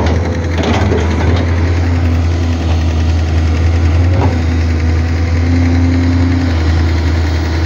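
Matador ME220 crawler excavator's diesel engine running steadily with a deep hum as the machine works, with a few short knocks in the first second or so and another about four seconds in.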